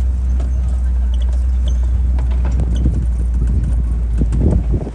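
Safari tour truck driving over a rough track: a steady low engine and road rumble with frequent knocks and rattles. The rumble drops off near the end.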